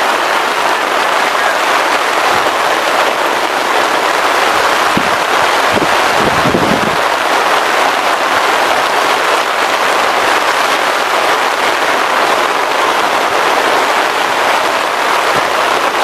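Heavy rain pouring down in a steady, loud hiss, with a few low bumps about five to seven seconds in.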